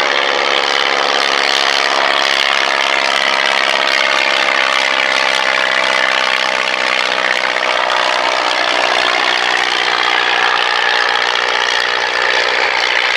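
Piston aero engine of an early-aviation replica aircraft flying overhead: a steady, loud propeller drone whose pitch drifts slowly as the aircraft passes.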